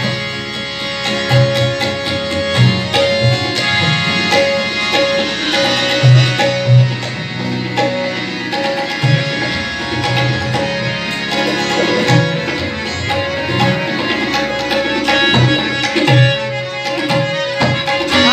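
Tabla and harmonium playing together: the harmonium holds steady reed tones while the tabla plays a running pattern, with deep bass-drum strokes standing out.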